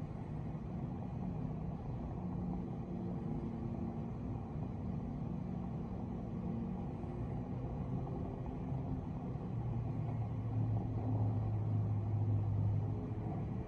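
Low, steady, muffled rumble of city traffic heard through a closed hotel window, with a steadier low hum joining it for a couple of seconds near the end.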